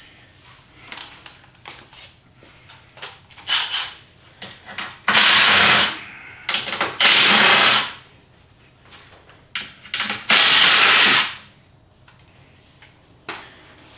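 A power tool run in three short bursts of about a second each, with light clicks and knocks of handled parts between them.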